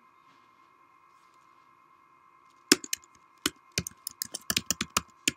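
Typing on a computer keyboard: a quick, irregular run of sharp key clicks starting about halfway through, over a faint steady electrical hum.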